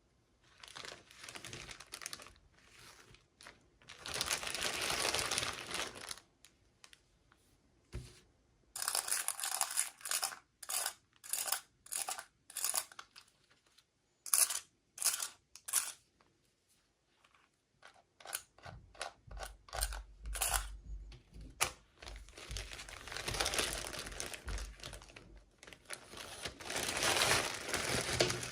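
Toy packaging being handled and torn open: irregular crinkling and tearing, with a run of short quick rustles in the middle and a few dull bumps about two-thirds of the way through.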